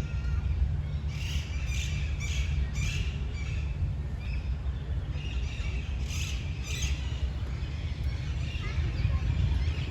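Birds calling: a run of about four short, harsh calls starting about a second in, then two more around the middle, over a steady low rumble of wind on the microphone.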